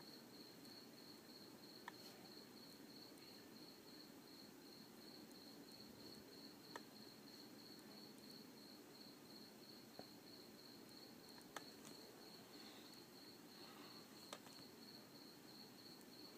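Near silence: faint hiss with a high, steady, rapidly pulsing chirp, and a few faint clicks.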